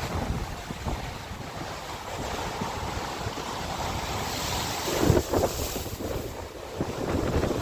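Strong wind buffeting the microphone over large lake waves breaking and washing on the shore, with a louder surge about five seconds in and another near the end.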